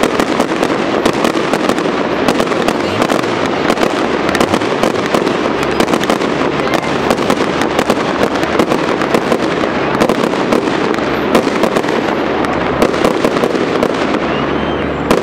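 Fireworks display: a dense, continuous barrage of rapid bangs and pops, many each second, easing slightly near the end.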